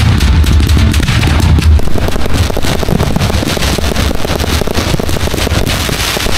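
Fireworks display: a dense run of bangs and crackling bursts over a continuous low rumble.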